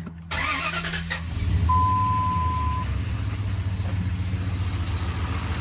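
2003 Dodge Ram 1500's 4.7-litre V8 running with a knocking noise, which some mechanics put down to the timing chain. The engine gets louder about a second and a half in, and a steady electronic beep sounds for about a second shortly after.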